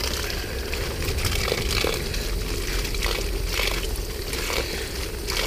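A garden hose spray nozzle jets water onto the plastic body of an iRobot Looj gutter-cleaning robot, with steady spraying and splashing as gutter grime is rinsed off.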